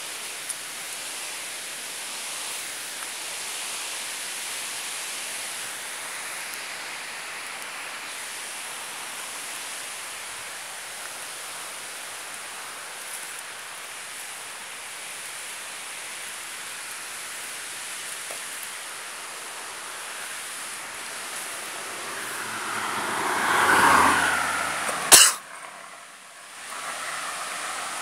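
Steady rushing of flowing river water. Near the end it swells louder for a couple of seconds, then there is a single sharp click and a brief drop in level.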